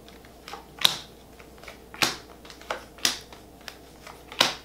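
Tarot cards being handled on a table: four sharp card snaps about a second apart, with a few fainter ticks between them.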